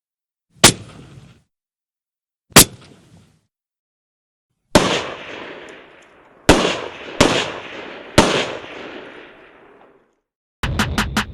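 Rifle gunshots: two sharp shots about two seconds apart with short tails, then four shots with long rolling echoes, one alone and then three in quick succession. A quick string of sharp pops comes near the end.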